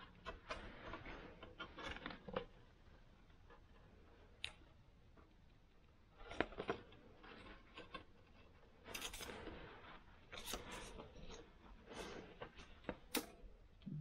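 Thin high-carbon steel music wire being threaded through and bent around a small steel arrow point by hand: faint, irregular clicks, ticks and short scratchy scrapes of wire on metal.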